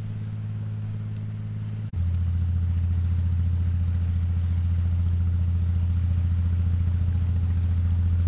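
Motor boat's engine running close by: a steady low drone that gets louder about two seconds in and then holds.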